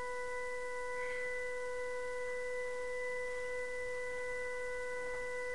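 Intro music: a single electronic note held perfectly steady, a pure, bell-like tone with a few even overtones.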